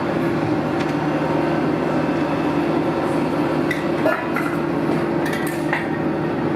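An engine running steadily, with a few scattered metallic clinks and knocks, the sharpest about four seconds in.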